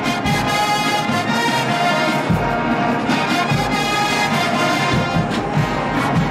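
HBCU show-style marching band playing: brass holding sustained chords over repeated drum strikes.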